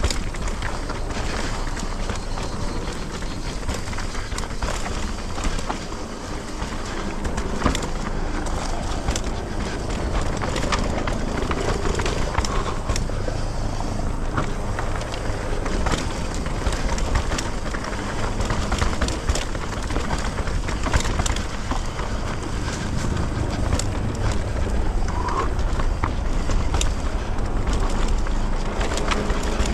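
Mountain bike riding down a rough trail: tyres rolling over dirt and rock, with frequent clicks and rattles from the bike, over a steady rumble of wind on the microphone.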